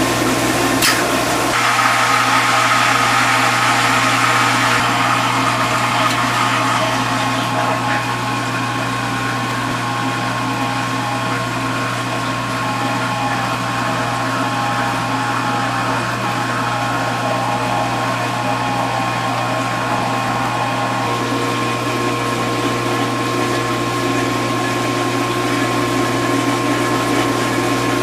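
Vintage KitchenAid KDS-18 Superba dishwasher running with its door open: a steady motor hum under the churning and spraying of water from its pump. A click comes about a second in, and the mix of the water noise shifts shortly after and again about three-quarters of the way through.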